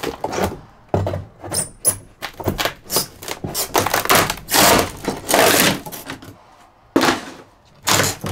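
Thin interior wall panel being pried and pulled off the foam insulation it was stuck to with construction adhesive: an irregular run of cracks, snaps and knocks, with longer ripping scrapes in the middle as it tears free.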